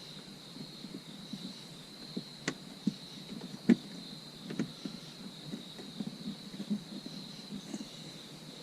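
A dash cam wire being tucked by hand into the gaps of plastic interior trim: scattered light clicks and scuffs, the sharpest a little under four seconds in.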